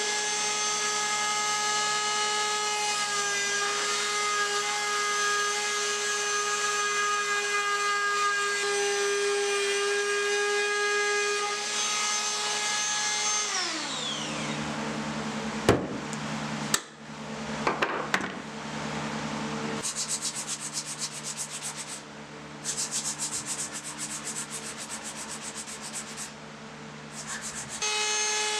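Ryobi trim router running steadily as its bit cuts the edge of a pine disc, then switched off about halfway through, its whine falling as it spins down. A couple of sharp knocks and a stretch of quieter rapid ticking follow, and the router runs again near the end.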